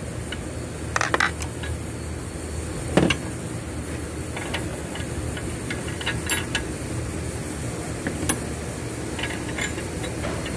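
Metal tool clicks and clinks of a wrench and slotted socket being worked onto a car's exhaust oxygen sensor to remove it, a handful of irregular knocks with the sharpest about 3 seconds in, over a steady low hum.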